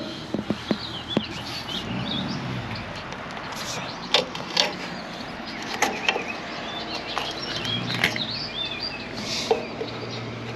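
Scattered light knocks and clicks, with birds chirping in the background.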